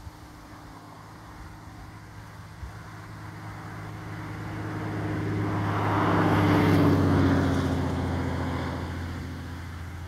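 An engine droning as it passes by, growing louder to a peak about seven seconds in and then fading, its pitch dropping slightly as it goes.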